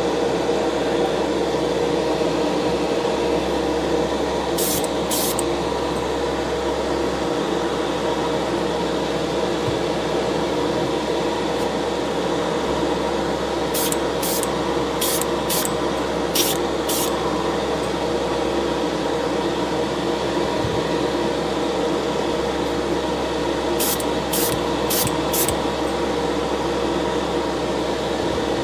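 Short hissing sprays of paint in quick groups, painting a die-cast toy car body, over a steady machine hum from a fan or compressor.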